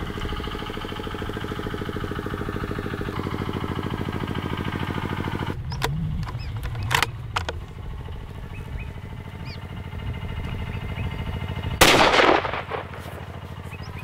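A vehicle engine running steadily for the first five seconds or so, then two sharp clicks about seven seconds in and a single rifle shot near the end, the loudest sound, with a short ringing tail.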